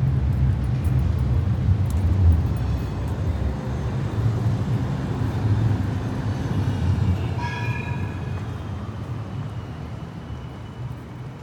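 Heavy vehicle rumbling past, a deep low rumble that fades steadily away, with a short high tone about two-thirds of the way through.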